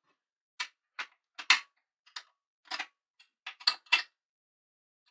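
Steel wrenches clicking against nuts and bolts as a jack mounting plate is bolted up to a steel press frame: about nine short, sharp metallic clicks, unevenly spaced, the loudest about one and a half seconds in.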